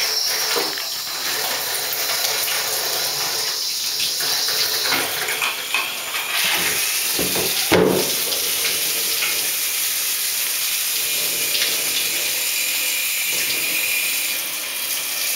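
Water running steadily into a bathtub while a wet Sheltie is washed, with a single knock about halfway through.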